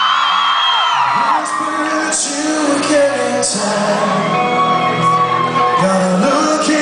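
Live rock band playing a song's instrumental opening, with cymbal crashes over sustained guitar and keyboard tones, while the crowd whoops and cheers.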